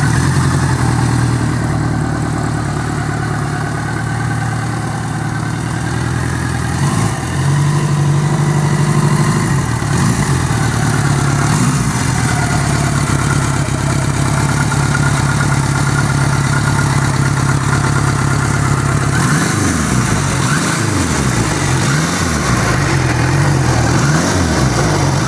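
Ariel Square Four motorcycle's square-four four-cylinder engine running as the bike is ridden at low speed. Its pitch shifts up about a third of the way in, and near the end it rises and falls several times as the revs go up and down.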